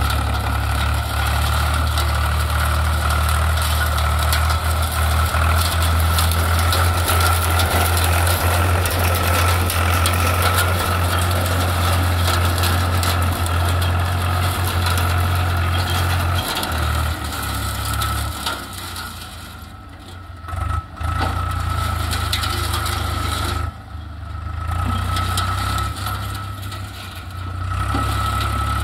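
Swaraj 735 tractor's three-cylinder diesel engine running steadily under load as it drives over dry crop stalks, with the crackle of stalks being crushed under the tyres. The engine sound drops away briefly twice in the second half.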